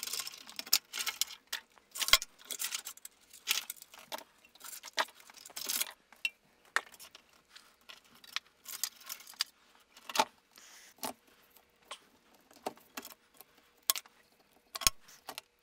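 Rustling, clicking and light knocks of ribbon cables, wiring and metal parts being pulled and handled inside an electronic instrument's chassis during a teardown, with a few sharper knocks about two seconds in, around ten seconds in and near the end. A faint steady hum runs underneath.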